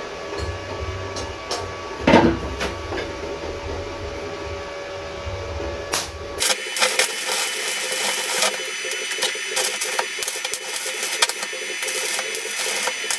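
A steady low hum, broken by one sharp knock about two seconds in. About six and a half seconds in, a stick-welding arc strikes and crackles and spits steadily as a thick electrode burns at high amperage.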